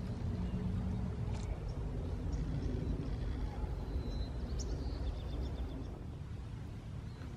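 Outdoor ambience: a steady low rumble with a few faint bird chirps near the middle. The tail of background music dies away in the first second.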